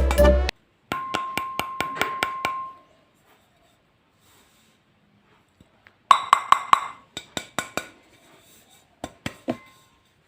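Music cuts off, then a series of quick, sharp taps in two clusters, some with a short ringing tone, and a few more taps near the end.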